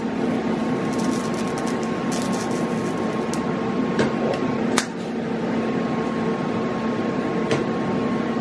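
Steady electric hum with a fine crackle from a metalworking tool running, broken by a few sharp clicks and a brief dip a little past halfway.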